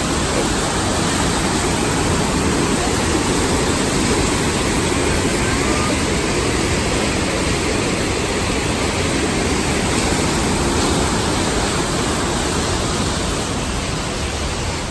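Mountain waterfall and the whitewater creek cascading over rocks below it: a steady, loud rush of falling water.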